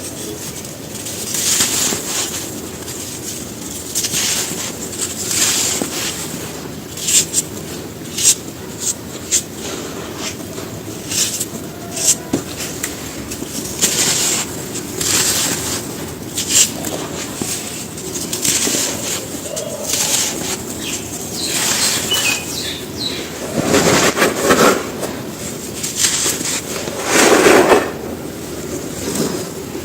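Dry sand-cement slabs and cones crumbling in a tub: irregular crisp crunches and crackles, with two heavier crumbling bursts near the end, over a steady low background noise.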